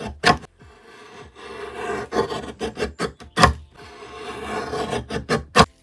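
Paper guillotine cutter trimming thick textured gesso card: the blade shears through with a rasp that builds over about a second and ends in a sharp clack, about two and a half times over, with smaller clicks in between.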